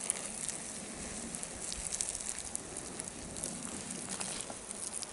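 A thin stream of drinking water pouring onto still-hot campfire ashes, hissing steadily with scattered small crackles as the embers are doused.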